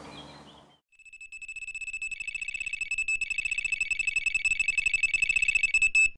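Electronic carp bite alarm sounding a full run: a rapid, unbroken string of high beeps that grows steadily louder, then cuts off suddenly.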